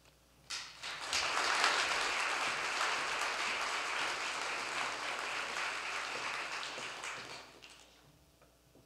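Audience applauding. The clapping starts about half a second in, swells within a second, holds steady, then fades out near the end.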